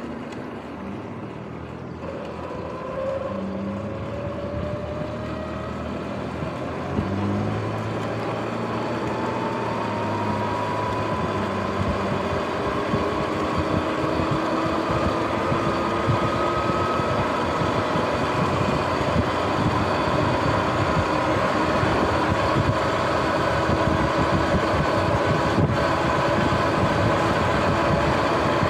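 Sur-Ron X electric dirt bike picking up speed: the motor and drivetrain whine rises steadily in pitch over the first half, then holds. Wind buffeting on the microphone and tyre rumble grow louder as the speed builds.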